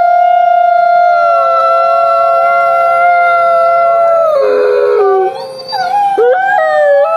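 Grey wolf howling: one long, held howl that sinks slightly in pitch. About four seconds in it breaks to a lower note, fades briefly, then comes back with wavering jumps in pitch near the end.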